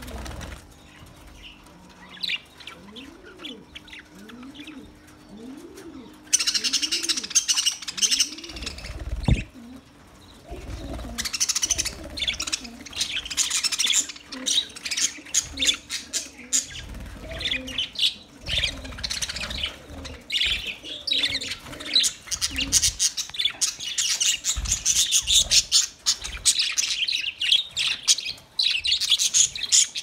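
A flock of budgerigars chattering: fast, overlapping chirps and warbles, sparse at first and then growing dense and loud about six seconds in.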